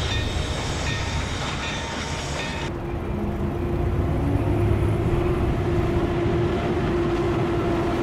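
Model Lionel 2360 GG1 electric locomotive running past on model train track: a steady rumble of wheels and motor. About three seconds in the sound changes abruptly, and from then on a steady hum sits over the rumble.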